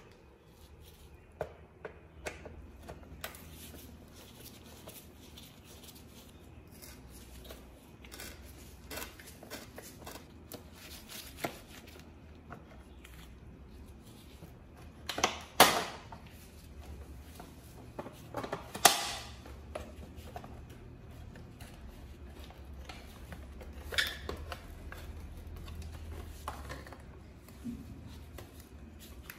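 Scattered clicks and knocks of tools and plastic body panels being handled as an old moped's handlebar cover is taken apart, with a few louder sharp knocks in the second half.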